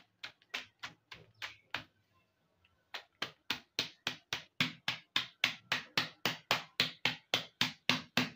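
Wooden rolling pin pounding boneless chicken in a plastic zip-lock bag against a hard countertop: a run of sharp knocks at about four a second, breaking the meat down into one mass. After a pause of about a second, the knocks come back louder and steadier.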